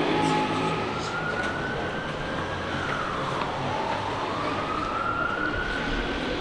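Emergency vehicle siren wailing in one slow sweep. It rises, falls to a low point about three and a half seconds in, then rises again, over the steady noise of a city street.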